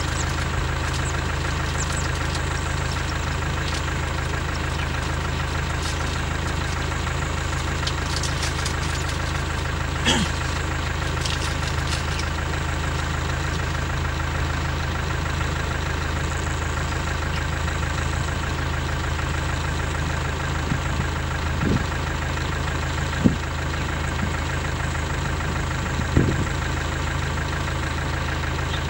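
Vehicle engine idling steadily, with a few short knocks or clicks over it.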